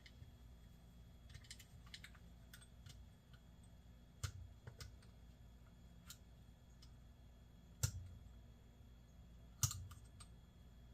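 Sparse light clicks and taps of small metal fishing-reel parts being handled, with three sharper clicks about four, eight and nine and a half seconds in, as the loose handle of an Ambassadeur 5501C3 reel is worked on by hand.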